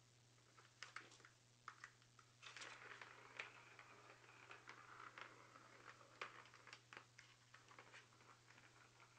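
Faint clicks and taps of kittens' paws batting at a plastic Catit Senses ball-track toy, with a ball rolling and rattling around the track from about two and a half seconds in. A low steady hum lies underneath.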